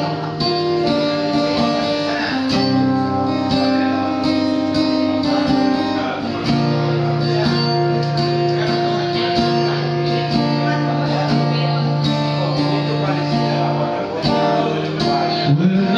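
Acoustic guitar played solo, picked and strummed chords ringing on with a steady stream of plucked notes.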